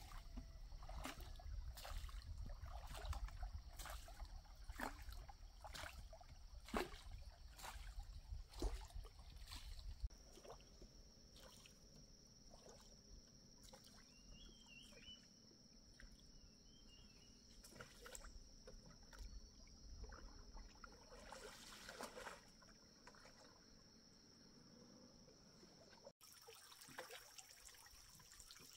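Faint trickling and splashing water with scattered light knocks, over a low rumble that stops about ten seconds in.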